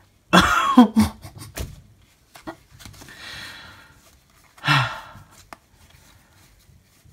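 Playing cards sliding and clicking against each other as they are fanned out by hand. A short vocal sound comes near the start, and a breathy exhalation about five seconds in.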